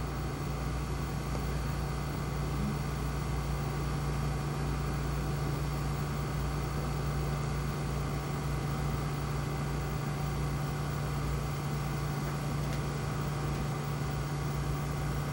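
Steady low electrical hum with an even hiss underneath, unchanging throughout, with no distinct events.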